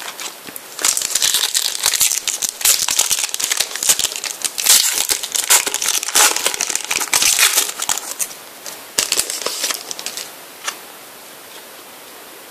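Foil trading-card pack (Prizm) crinkling as it is handled and torn open: a dense run of sharp crinkles from about a second in to about eight seconds, then a few lighter crackles before it goes still near the end.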